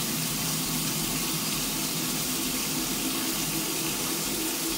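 Kitchen faucet running steadily into a stainless-steel sink, the stream splashing over hands being washed under it.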